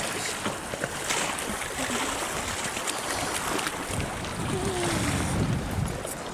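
Wind buffeting the microphone over sea washing against a stone pier wall, with small splashes from a hooked dogfish thrashing at the surface as it is reeled in.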